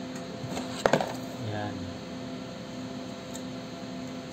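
Handling noise from a tower CPU cooler with six heat pipes and a fan being turned over in the hands: one sharp knock about a second in, then faint rustling, over a steady low hum.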